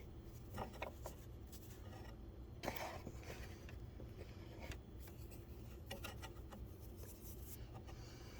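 Fingertips rubbing and spreading baking soda over greasy surfaces inside a Rotimatic roti maker: faint scattered scratching and rubbing with small clicks, the clearest a short scrape about three seconds in, over a low steady hum.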